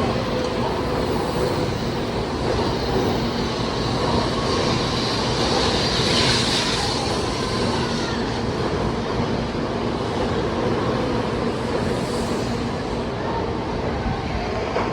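Tokaido Shinkansen N700A train running out of the station: a steady rail rumble and hiss from the passing cars, with a brighter, higher hiss swelling briefly about six seconds in.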